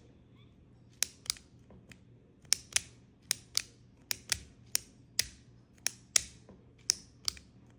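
Retractable click pen being clicked on and off over and over, its clip-operated push mechanism giving sharp plastic clicks in quick pairs, about one pair a second.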